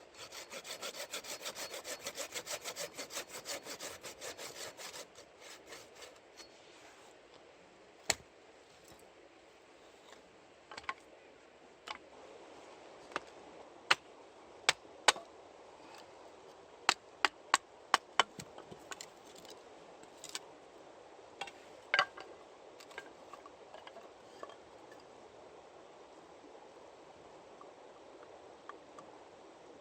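Hand saw cutting through wood in quick back-and-forth strokes for about five seconds, followed by scattered sharp cracks and snaps of wood.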